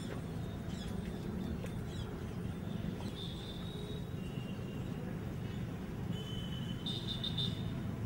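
Birds calling, short thin high calls about three seconds in and a quick run of them near the end, over a steady low background rumble.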